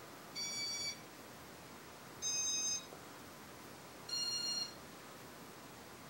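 Three short electronic beeps from a Casablanca Inteli-Touch ceiling fan control running its demo mode. Each beep lasts about half a second and has a different pitch, and they come about two seconds apart over the faint steady whoosh of the spinning fan.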